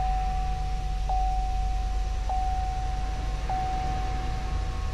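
Dashboard warning chime of a 2015 Chevrolet Suburban, a single steady tone struck anew about every 1.2 seconds, four times, the last fading out near the end, over the low hum of the engine just started. The chime goes with the 'Oil Life 13% Remaining' message on the cluster.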